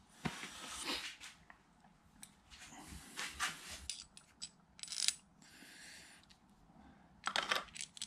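Small metal parts of an aluminium RC car wheel hub clinking and tapping as they are handled, with scattered sharp clicks, a soft rustle about 5 to 6 seconds in and a louder scraping rustle near the end.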